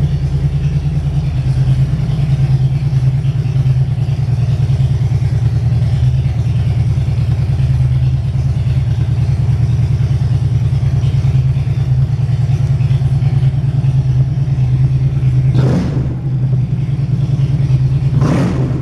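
2007 Harley-Davidson Electra Glide Classic's 1584 cc air-cooled Twin Cam 96 V-twin idling steadily. Two brief noises rise over it near the end.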